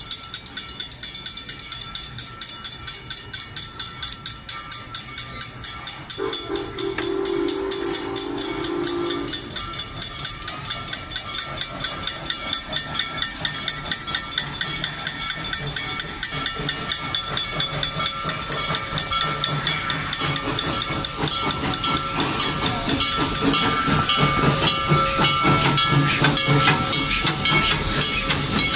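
Serengeti Express park train approaching, with a fast, even rhythmic chuffing and hiss that grows louder as it nears. It blows its whistle once, a single held blast of about three seconds starting about six seconds in.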